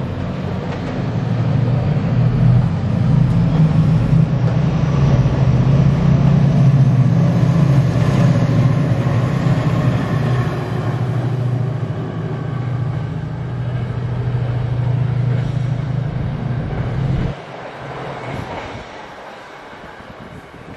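Two Class 68 diesel-electric locomotives, each with a Caterpillar V16 engine, running through the station at the head of a nuclear flask train, with the flask wagons' wheels rolling past. The loud low engine drone cuts off suddenly about 17 seconds in, leaving a fainter fading rumble.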